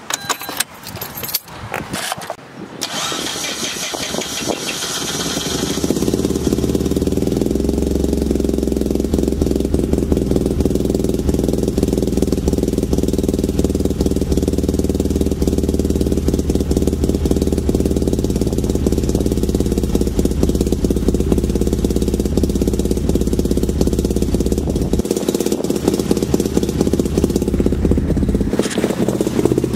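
The two-rotor 13B rotary engine of a 2004 Mazda RX-8 is idling steadily, heard at the tailpipe on the freshly installed engine's first start-up. A few seconds of clicks and handling noise come before the steady engine note takes over.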